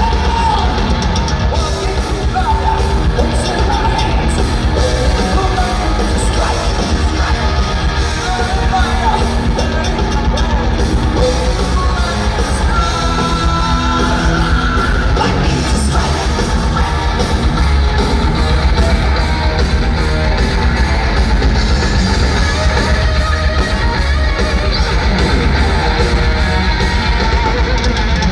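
A heavy metal band playing live and loud: distorted electric guitars, bass and drums, with sung and screamed vocals, heard from the audience in a large hall.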